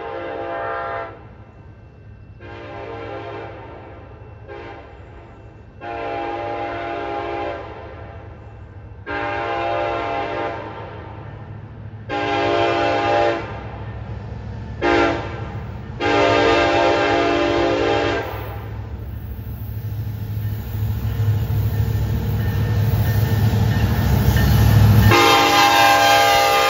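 Canadian National freight train's diesel locomotive horn sounding the grade-crossing signal twice in a row: long, long, short, long. The rumble of the lead locomotives' engines then grows as they draw close, and a last long horn blast sounds as they pass.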